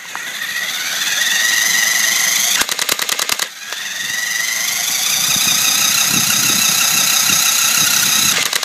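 Remote-control car's electric drive motor whining, rising in pitch as the car speeds up. About two and a half seconds in, the car-mounted electric airsoft machine gun fires a short rapid burst of about eight shots, then the motor whine rises again and holds.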